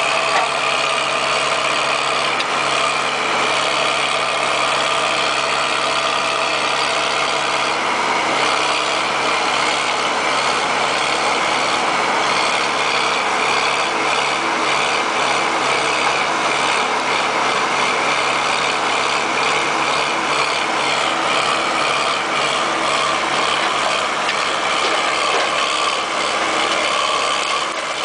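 Backhoe's diesel engine running steadily at a fairly even speed.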